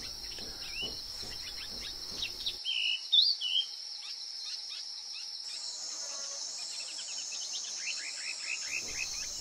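A steady high-pitched insect trill with a few short rising bird chirps about a second and three seconds in. A second, wavering high insect buzz joins about halfway through.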